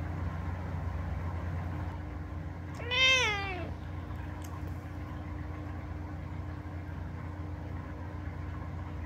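A domestic cat meows once, about three seconds in: a single call of under a second that rises slightly and then falls in pitch. A steady low hum runs underneath.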